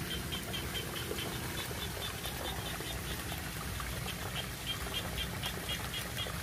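Muddy water rushing steadily through a narrow gap in a mud-and-net channel dam. A high, thin chirp repeats about four times a second throughout.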